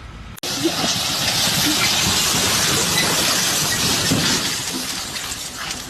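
Steady loud hissing, rushing noise that starts abruptly about half a second in and holds even until it cuts off at the end.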